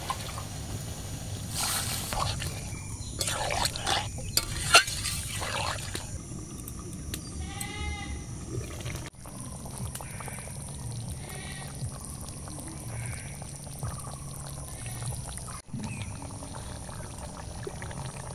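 Steel ladle stirring and scraping in a metal kadai of soya chunk and potato curry that has just had water added, with a sharp clink about five seconds in. After that the curry simmers and bubbles, and an animal bleats a few times in the background, loudest around eight seconds in.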